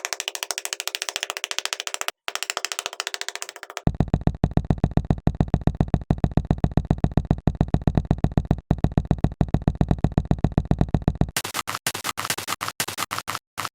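Electronic intro music made of a fast, even pulsing beat that changes about four seconds in to a heavier, bass-laden pulse, then near the end to a choppier, higher pattern.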